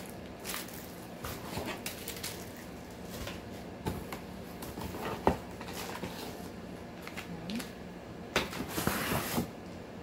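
Cardboard box and plastic-wrapped parts being handled while unpacking: scattered knocks and taps, with a burst of crinkly rustling about nine seconds in.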